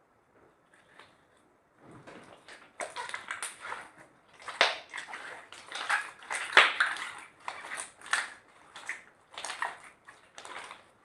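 Slime being mixed and squished by hand, with irregular wet squelches and sticky pops starting about two seconds in, several a second.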